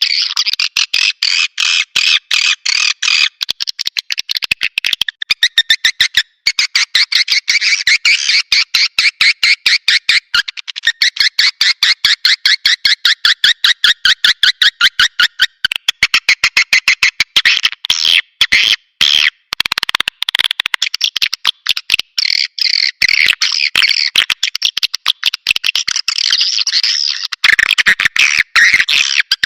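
Swiftlet caller sound: a dense, rapid twittering chatter of swiftlets, many quick high chirps a second, broken by short pauses every few seconds. This is the recorded call played to lure swiftlets to roost and nest.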